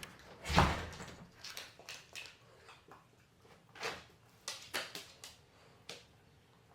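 Pet door flap clacking and knocking several times, with the loudest knock about half a second in and a cluster of quicker clacks a little before the five-second mark.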